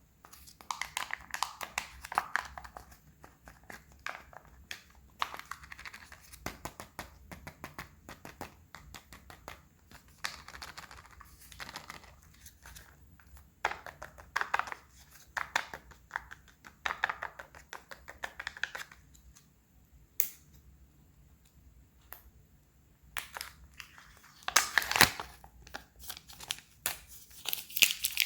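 Foil and plastic wrappers crinkling and tearing as Kinder Surprise eggs and their toys are unwrapped by hand. It comes in a series of crackly bursts with short pauses, and the loudest tearing comes near the end.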